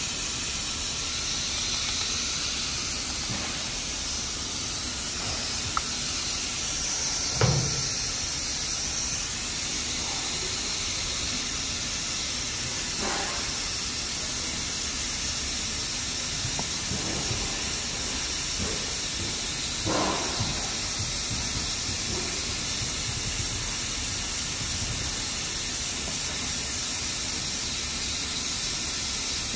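Cleaning foam fizzing steadily on a car door panel as its bubbles pop, a constant hiss, with a few faint brief touches as a gloved finger draws through the foam.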